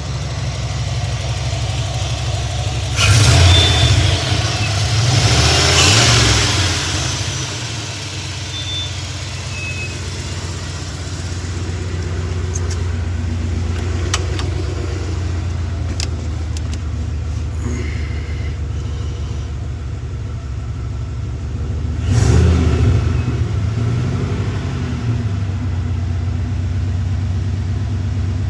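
Turbocharged car engine idling and revved up three times, each rev bringing a rushing turbo whoosh over the engine note before it settles back to idle.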